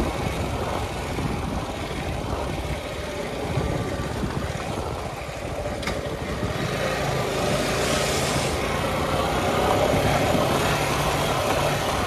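Suzuki Gixxer SF motorcycle's single-cylinder engine running at low speed on a rough dirt trail, heard with wind noise. The engine note steadies and gets louder in the second half.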